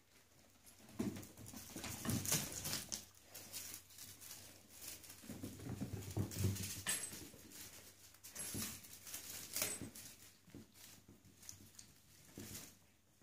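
Bengal kittens wrestling and scrambling on a wooden floor: irregular thumps, scuffles and paws scrabbling, busiest in the middle and fading near the end.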